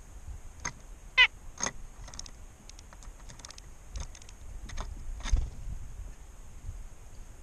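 A bird's short calls and squawks: a loud wavering squawk about a second in, a second call just after, then scattered short chirps and clicks, over a steady high hiss.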